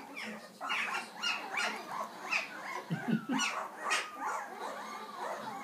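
A litter of young puppies whimpering and squeaking: short, high-pitched cries that fall in pitch, about two a second, some overlapping.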